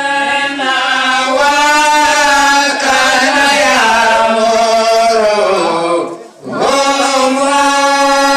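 Devotional Islamic chanting: a voice sings long, held, melodic notes that slowly bend in pitch, with a brief break about six seconds in before the next phrase.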